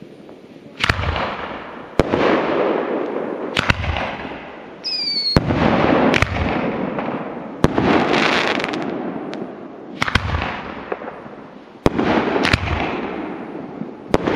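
Aerial fireworks going off at night: about ten loud bangs at uneven gaps of one to two seconds, each burst followed by crackling that fades away. A short whistle falls in pitch about five seconds in.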